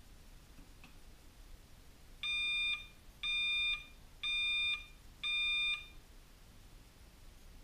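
Digital workout timer counting down: four even electronic beeps, each about half a second long and one second apart, marking the last seconds before the clock starts.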